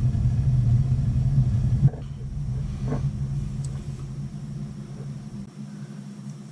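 Gas water heater's main burner rumbling low, then dropping off suddenly about two seconds in, leaving a weaker hum with a few faint knocks.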